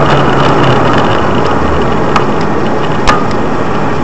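Loud, steady noise of a moving road vehicle, with sharp clicks about two seconds in and again about three seconds in.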